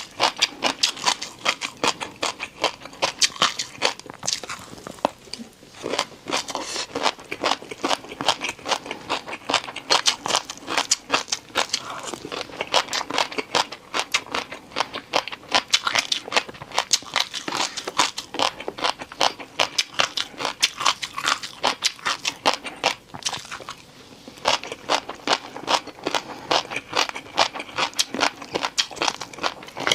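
A person chewing and crunching crisp food close to the microphone: dense, rapid crackling crunches, many to the second, with two short lulls, one about five seconds in and one about three quarters of the way through.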